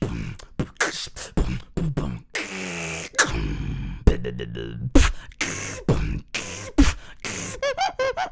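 Beatboxing into a microphone: a fast run of mouth-made kick, snare and hi-hat sounds. About two seconds in there is a held buzzing tone lasting a second or so, and near the end a rapid run of short rising-and-falling squeaks.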